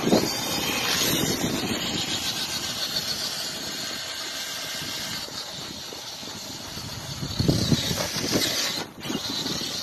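Traxxas TRX-4 electric RC truck driving off across concrete and onto grass: its motor and drivetrain run steadily with tyre noise. The sound gets louder for about a second near the end.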